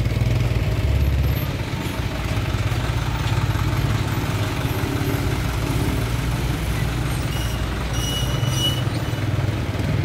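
Truck engine running close by, a deep steady rumble that shifts a little in level, with a brief thin high squeal near the end.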